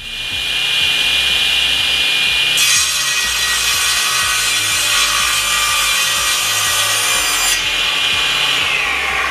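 SIP 01332 10-inch cast-iron table saw with its 2200 W motor running, the blade whining steadily. About two and a half seconds in, the blade cuts through a block of wood on an angled cross cut for about five seconds. Near the end the whine falls in pitch as the blade slows.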